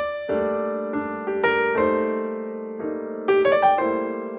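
Background piano music: a slow run of struck notes and chords, each starting sharply and fading as it rings.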